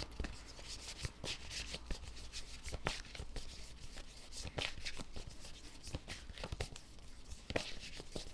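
A tarot deck being shuffled by hand: cards sliding and flicking against each other in quick, irregular snaps and swishes.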